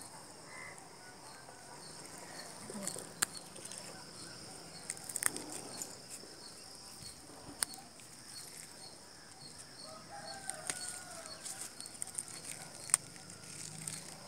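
Quiet handling of a potted mint plant as its leaves and stems are pinched off by hand: soft rustling with a few sharp snaps or clicks. A faint repeating chirp and a few faint bird calls sound in the background.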